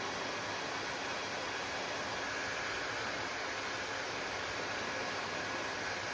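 Hair dryer running steadily, an even rushing noise of fan and airflow with no change in level.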